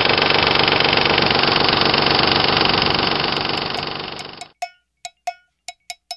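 1996 Ford Probe GT 2.5 L 24-valve V6 running with a fast ticking, slapping noise: the owner suspects a loose timing belt making a pulley vibrate. The engine sound cuts off suddenly about four and a half seconds in. Sharp ringing percussive hits follow, a few per second.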